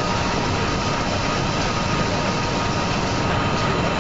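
Steady machinery noise of an automated packaging line, with conveyors and a delta picking robot running continuously, and a faint steady whine on top.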